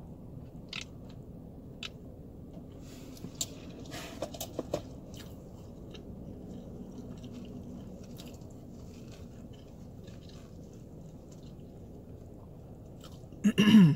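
A person chewing food with the mouth closed, with small wet clicks over a steady low hum. Just before the end comes one short, loud sound from the voice.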